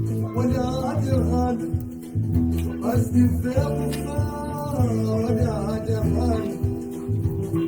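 A song playing: a singing voice over a pulsing bass and plucked string instruments.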